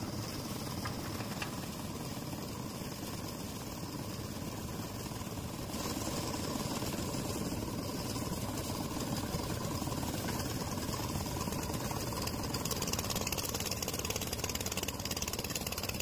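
Engine of a concrete mixer with a hoist winch, running steadily.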